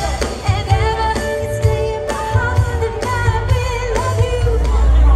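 Live band playing amplified pop music through a PA, with a woman singing lead over keyboards, bass and drums.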